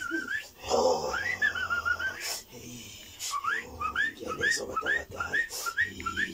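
A person whistling. A long warbling note ends about half a second in, a rising note wavers just after a second in, and from about three seconds on comes a run of short upward-sliding whistles, about two to three a second.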